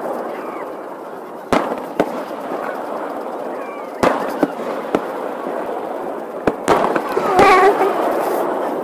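Aerial fireworks bursting in a series of sharp bangs, the strongest about a second and a half and four seconds in, with several more near the end, over a steady hiss of noise. The audio is played back sped up.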